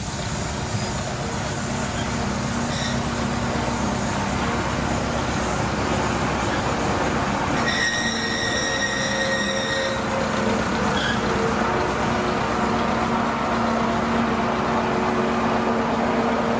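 Heritage-railway train running steadily, with a continuous engine hum that grows slightly stronger. A high-pitched squealing tone cuts in for about two seconds around the middle.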